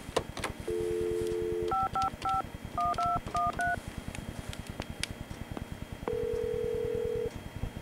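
Landline telephone: a click as the handset is lifted, a dial tone for about a second, then a quick run of about seven touch-tone beeps as the number is dialled. Near the end comes one ring tone of about a second as the call goes through.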